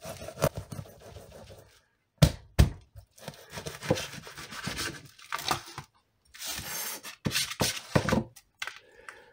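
Large kitchen knife sawing through a partly frozen trout and its backbone, in rough scraping, crunching strokes. About two seconds in there are two sharp knocks of the blade against the table.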